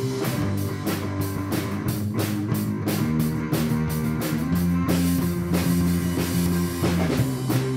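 Background rock music with a steady drum-kit beat, bass and guitar.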